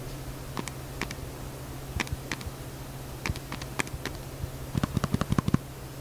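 Keys of an Apple iPad keyboard being typed on with the microphone held right over them: quiet, irregular key clicks, with a quicker run of them near the end. A steady low hum runs underneath.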